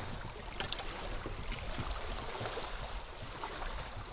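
Shallow lake water lapping softly around a person kneeling in it, with faint small drips and splashes.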